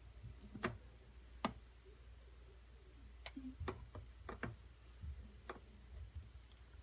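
A handful of light, irregularly spaced clicks and taps over a faint low room hum.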